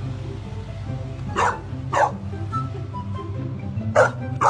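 A puppy barking: four short, sharp barks in two pairs, over background music.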